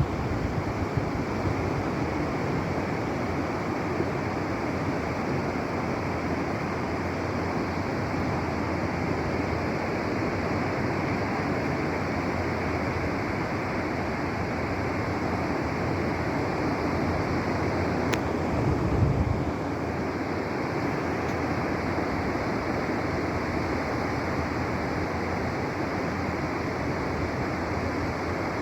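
Ocean surf breaking and washing onto a beach in a steady rush, with a brief low rumble about nineteen seconds in.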